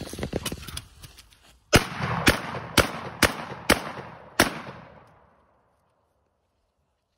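Rifle fired six times in rapid succession, roughly half a second apart, each shot followed by a short echo that dies away about a second after the last shot.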